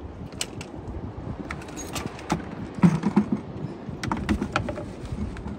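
A landed fish and fishing gear being handled at a bucket and plastic bag: scattered clicks and knocks, with one louder thump about three seconds in.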